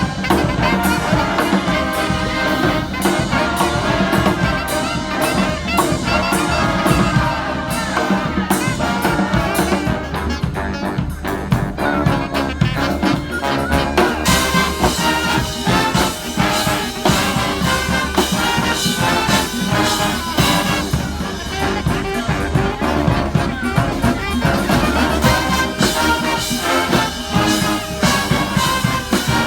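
Live street brass band playing, trumpets and trombones over a steady beat; the sound grows fuller about halfway through.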